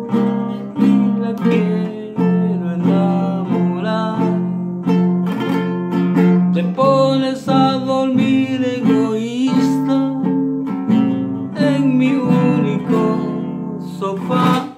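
A man sings in Spanish to his own strummed acoustic guitar. The chords ring steadily under the melody, and both stop abruptly near the end.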